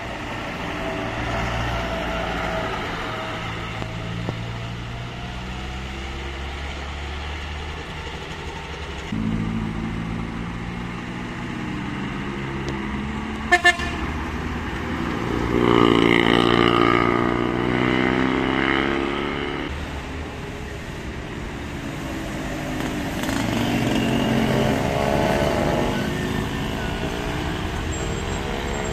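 Minibuses and vans driving past one after another on a hill road, their engines running hard, the pitch rising and falling as each goes by. About halfway through, two short horn toots; the loudest engine passes just after them.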